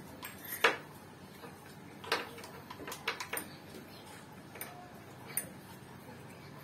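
Scattered sharp metal clicks of an L-shaped hex key working a bolt at the brake lever on an Odessy Ritz 20-inch folding bike's handlebar. The loudest click comes about half a second in, then a cluster of clicks between two and three and a half seconds and a couple more later.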